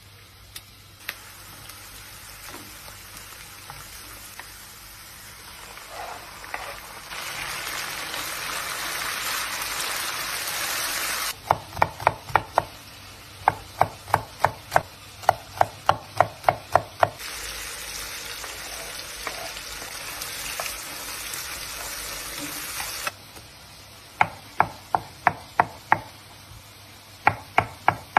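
Knife chopping on a wooden cutting board in quick runs of even strokes, about four or five a second, mincing garlic and roasted eggplant. Between the runs come stretches of food sizzling in a frying pan.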